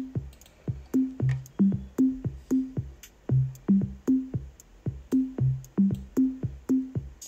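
Background music: an electronic track with a steady drum-machine beat of about three hits a second and a low synth bass line. It breaks off briefly just before the end.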